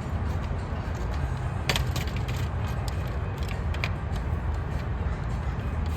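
Plastic parts of a Dickie Toys toy garage clicking and tapping as they are handled and fitted together, a few sharp clicks, the loudest about two seconds in, over a steady low background rumble.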